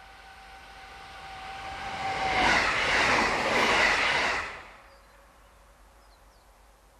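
A 711 series electric multiple unit passing close by: a steady whine as it approaches, then a rising rush of wheels and running gear, loud for about two seconds, that cuts off suddenly.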